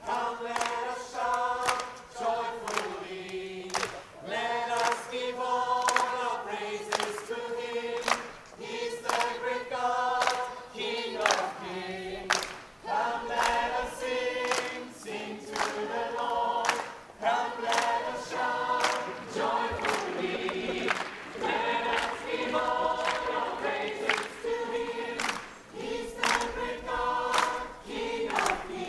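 Large mixed choir of children and adults singing an English praise song in several parts.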